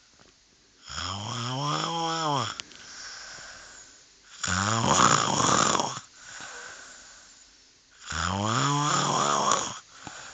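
A man snoring heavily. There are three long snores about three and a half seconds apart, with softer breaths between them. The first and last snores have a tone that rises and falls in pitch, and the middle one is a harsh rattle.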